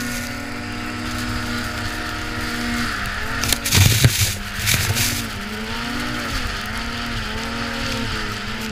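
Ski-Doo 800 snowmobile's two-stroke twin engine running under steady throttle. About three seconds in, its pitch dips as the sled plows through a snow drift, with a few loud thumps and a rush of snow. Afterwards the engine note rises and falls with the throttle.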